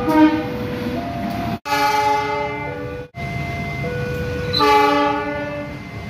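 Diesel locomotive horns sounding several blasts: a short one at the start, a longer one about a second and a half in, and another near the end. Abrupt cuts break the sound between them.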